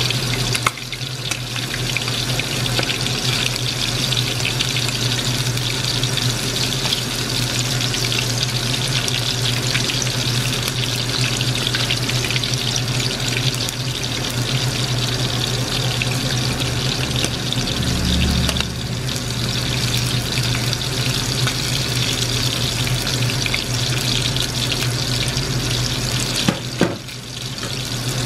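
Battered squid rings deep-frying in hot oil in an aluminium wok: a steady sizzling hiss with a low steady hum underneath. It dips briefly about a second in and again near the end.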